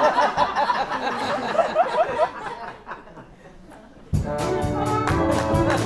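Laughter for the first two seconds or so. About four seconds in, a live pit orchestra with brass strikes up scene-change music in sharp, repeated chords as the stage goes dark.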